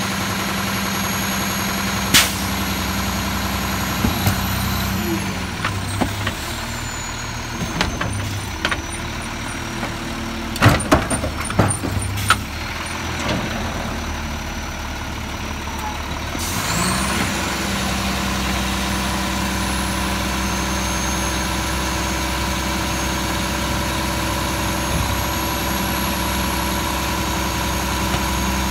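Rear-loading garbage truck running while its hydraulic packer blade cycles through a hopper of yard waste. Clanks and knocks come between about 4 and 13 seconds in, and a high whine slides down and then jumps back up a few seconds later.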